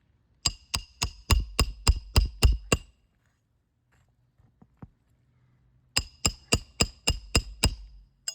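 Roof snake, a slide-hammer nail driver, striking metal on metal with a ringing clank as it drives roofing nails in under lifted asphalt shingles. Two runs of quick, even blows about three a second: nine, a pause of about three seconds, then eight more.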